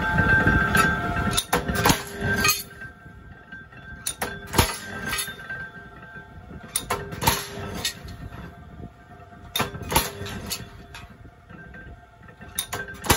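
Flywheel-driven mechanical punch press with a V-shaped shear blade chopping steel angle iron: about five sharp metallic clanks, roughly every two and a half seconds, over the steady running of the spinning flywheel. The machine noise is loudest in the first two seconds.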